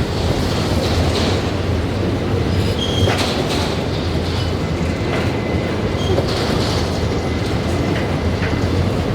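Freight train wagons rolling steadily past, with a continuous rumble and rattle of wheels over the rails, scattered clacks, and a few brief high-pitched wheel squeals.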